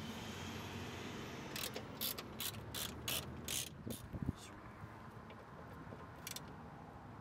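Hand ratchet with a socket and extension backing out a door bolt: about six quick bursts of clicking between one and four seconds in, and one more near the end, over a steady low hum.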